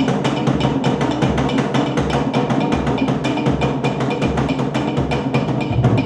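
Background music driven by fast, steady percussion over a pulsing bass.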